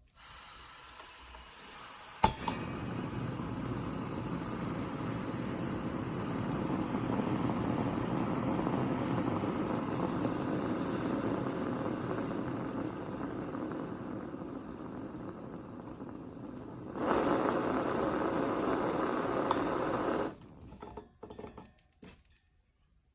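Portable propane heater's burner running with a steady hiss of gas and flame, with a sharp click about two seconds in. It grows louder near the end, then cuts off suddenly.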